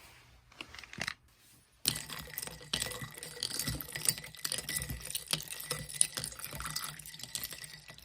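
Water running, switched on suddenly about two seconds in, after a couple of faint knocks.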